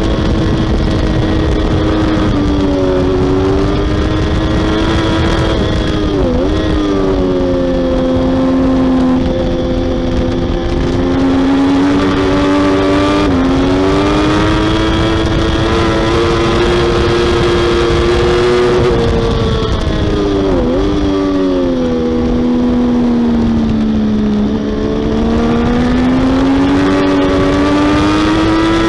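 Triumph Daytona 675R's 675cc three-cylinder engine running at high revs on a race track, heard from the bike itself. Its pitch climbs and falls with the throttle and gear changes, with a few sharp quick dips, over a steady rush of wind.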